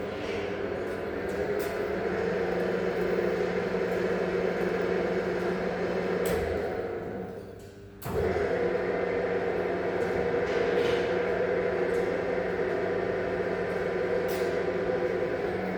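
Gieseking SD 1 welding turn-and-tilt table's electric drive motor and gearing running with a steady hum. The hum dies away about halfway through and starts again abruptly a moment later, with a few sharp clicks along the way.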